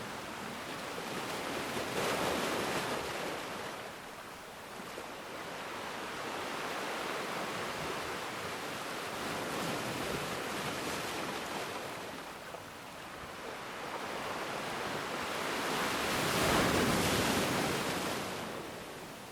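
Ocean surf on a black sand beach: waves breaking and washing up the shore in slow surges. One swell comes about two seconds in, and a bigger, louder one a few seconds before the end.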